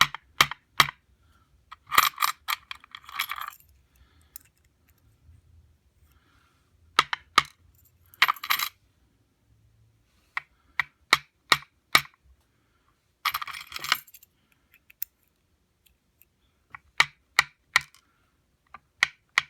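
Small metal lock pins (the padlock's key pins) clinking onto a pinning tray as they are sorted: scattered single ticks and three short rattling clusters of ringing clicks.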